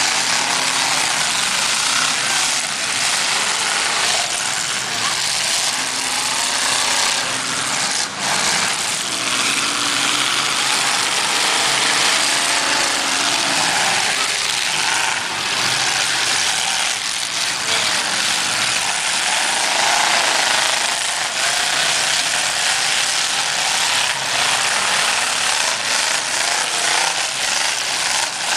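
Engines of several demolition derby cars running and revving hard together in a loud, continuous racket, rising and falling in pitch. A few sharp knocks stand out, the clearest about eight seconds in.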